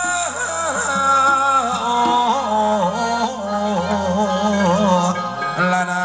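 Live band playing the instrumental introduction to a ramwong dance song: an ornamented, wavering lead melody over a steady bass. About five seconds in the bass drops out briefly and a new sustained chord comes in.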